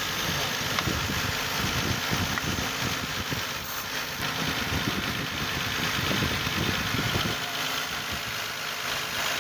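Car engine idling.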